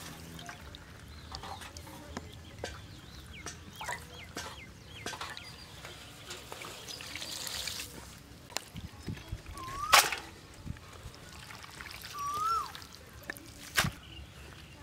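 Clicks and knocks from raw meat pieces and a steel plate being handled, with two sharp knocks about ten seconds in and near the end. Short rising-and-falling bird calls come twice in the second half.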